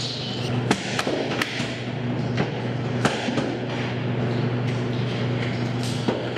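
Steady low machine hum, broken by a handful of sharp knocks and clatters as plastic cheese moulds and metal hoops are handled on a stainless-steel table.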